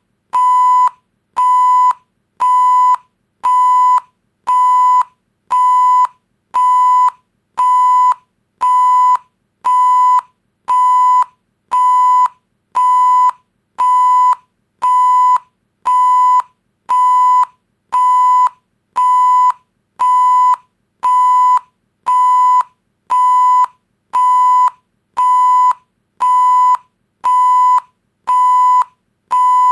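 Electronic beep sound effect: one steady high tone of the same pitch, repeating about once a second, each beep lasting a little over half a second with a short silent gap between.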